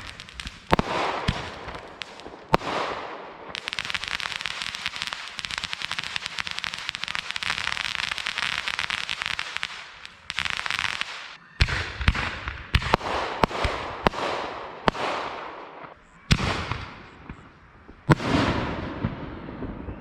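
Consumer fireworks going off: a few sharp bangs, then several seconds of dense rapid crackling, then a string of separate bangs, each trailing off in crackle and hiss, with a loud bang near the end.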